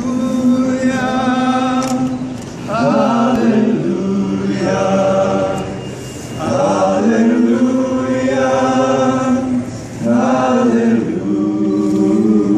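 A group of voices singing together in slow, held notes, phrase by phrase, with short breaks for breath between phrases.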